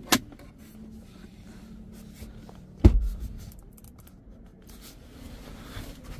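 A sharp click, then about three seconds in a single heavy thump as the leather-covered centre console box lid of the GWM Tank is shut, with faint handling rustle around it.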